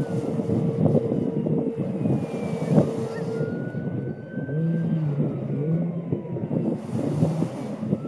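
Wind buffeting the microphone, with a motor running underneath and a steady tone that stops about three and a half seconds in.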